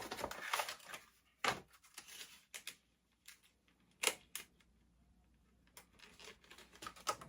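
Plastic soft-bait packet being handled and opened: crinkling at first, then a few sharp clicks and snaps with light rustling between.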